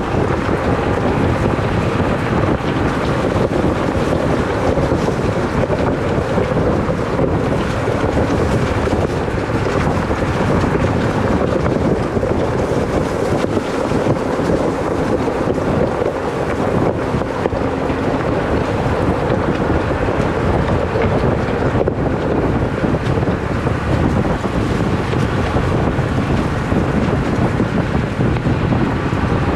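Jeep engine running as it crawls over rough ground, under a steady rush of wind noise on the microphone.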